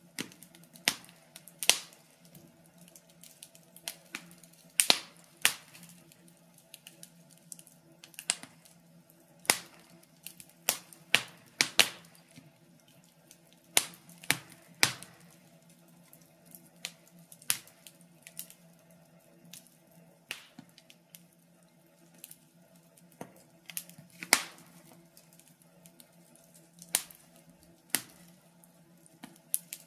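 Wood fire crackling: irregular sharp pops and snaps, scattered unevenly with some much louder than others, over a faint steady hum.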